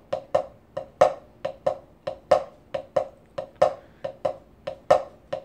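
Drumstick striking a rubber practice pad in a swung shuffle rhythm: quiet tap notes between louder accent notes, the accent landing about every 1.3 seconds, some four strokes a second in all.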